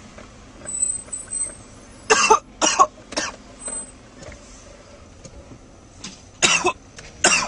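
A person coughing in short fits: three sharp coughs about two seconds in, then two more near the end.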